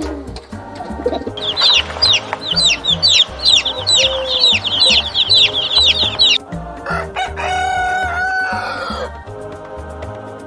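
Chicks peeping, a dense run of short, high, falling cheeps for about five seconds. Then a rooster crows once, a held call of about two seconds, over a low background music beat.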